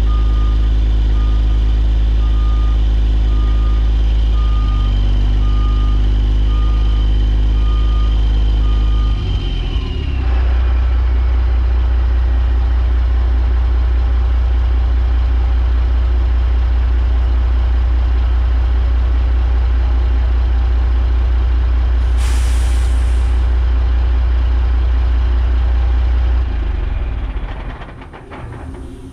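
The grapple truck's 550 hp Cat 6NZ (3406E) six-cylinder diesel running loud while a reverse alarm beeps about every two-thirds of a second; about nine seconds in the beeping stops and the engine settles into steady running. About two-thirds of the way through there is a short air-brake hiss, and near the end the engine sound dies away.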